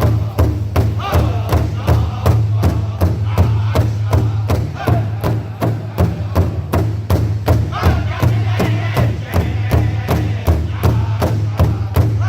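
Powwow drum group singing around a big drum, beating it in a steady, even beat of about three strokes a second while the voices chant in a high, gliding style.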